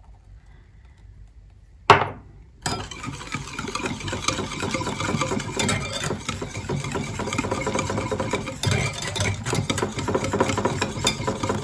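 Hand balloon whisk beating egg, sugar and oil in a glass bowl: a fast, continuous scraping and clicking of the wires against the glass, starting about three seconds in after a single sharp knock.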